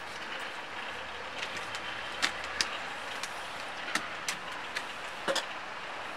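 Steady outdoor background noise like distant traffic, broken by about eight sharp metallic clicks and clanks at irregular intervals, typical of a neighbourhood ironworks.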